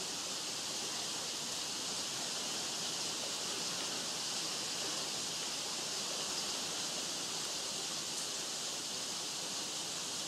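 Steady, even hiss of outdoor ambience, strongest in the high range, with no distinct events.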